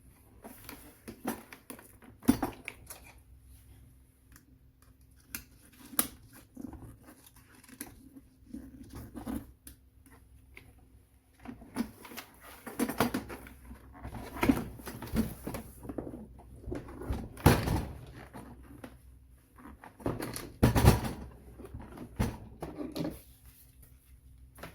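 Handling noise from an electric pressure rice cooker being worked on: scattered clicks, knocks and rustles of plastic parts being handled, with a few sharper knocks.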